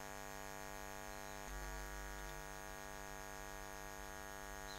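Steady electrical mains hum with a stack of evenly spaced overtones, picked up by the recording microphone, with a faint low bump about a second and a half in.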